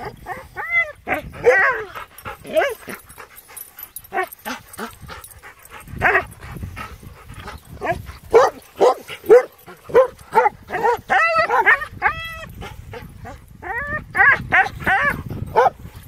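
Dogs barking and yipping in quick runs of short, high calls: excited play after being let out into the yard in the morning.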